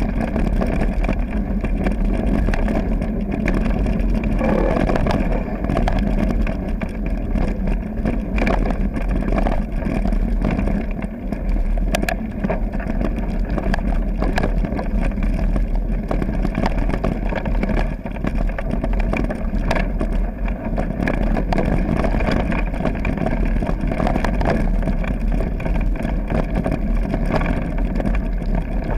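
Mountain bike riding a gravel forest trail, heard through a camera carried on the bike or rider: a steady rumble of tyres on gravel and air rushing past the microphone, with scattered sharp clicks and rattles.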